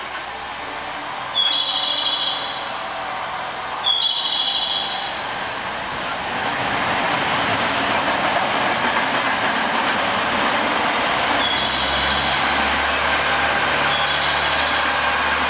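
KiHa 40 diesel railcar pulling away from a station platform. Two sudden high-pitched sounds come about two and a half seconds apart within the first four seconds. Then the engine and running noise build and hold steady as the car accelerates past.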